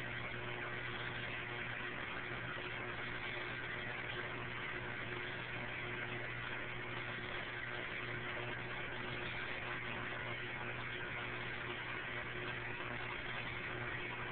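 Aquarium filter pump running: a steady hum under an even hiss.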